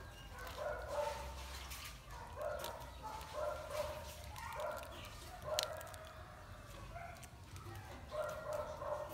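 Short animal calls repeated about once a second, over light crinkling of a plastic bag and clicks as a wire tie is twisted shut.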